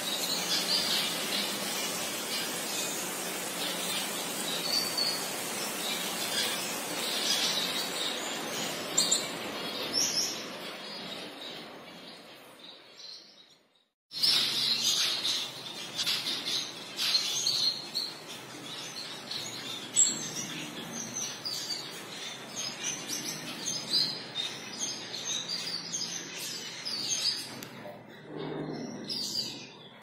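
Small caged aviary finches chirping and twittering, a dense chatter of short high calls. The chatter fades away about twelve seconds in, breaks off briefly, then comes back abruptly.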